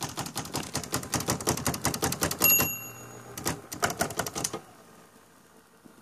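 Royal Apollo 10 electric typewriter typing rapidly, its typebars striking about eight to ten times a second, until the margin bell rings once about two and a half seconds in, the signal that the end of the line is near. A few more clacks follow.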